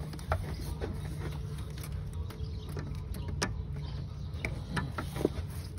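Scattered light clicks and metal taps from hand work on parts in a car's engine bay, irregular and a second or so apart, over a steady low hum.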